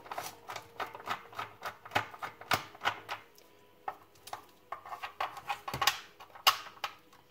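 Irregular clicks and knocks of a Torx T10 screwdriver and hard plastic housing parts being handled as the screws are undone from a cordless stick vacuum's casing.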